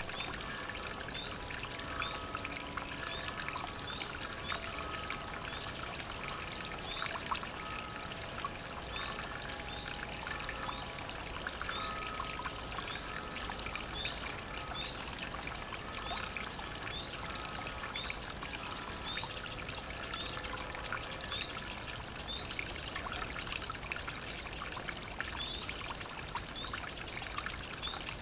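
Small woodland stream trickling over a rock lip into a shallow pool, a steady water sound, with a short high chirp repeating about once a second.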